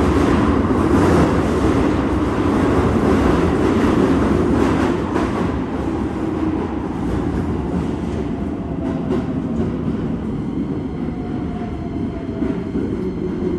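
Keikyu 1000 series train with a Toyo IGBT-VVVF inverter running, heard from inside the motor car: heavy running rumble with a faint inverter whine that slowly rises in pitch, and wheel clicks over the rail joints. This car's VVVF gear was known for an unusually loud, abnormal noise until it was removed at inspection.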